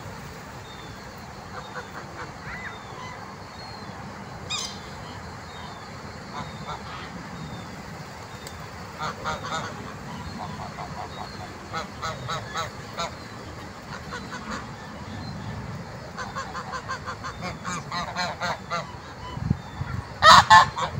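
A flock of geese honking in quick runs of calls, several times, with the loudest run near the end.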